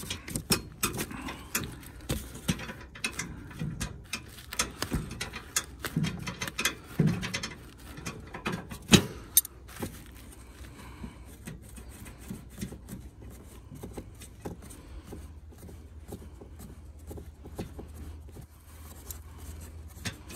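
Metal wrench clicking and clinking on a half-inch bolt of a steel sawmill shipping crate as the bolt is loosened. The clicks come thick through the first half, with one sharp loud click around nine seconds in, then thin out.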